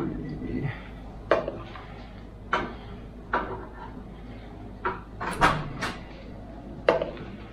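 A measuring cup knocking against the rim of a ceramic bowl while scooping mashed strawberries, and against a stainless steel pot as each cupful is emptied in: a string of sharp knocks and clatters about every second, with a quick cluster of them a little past the middle.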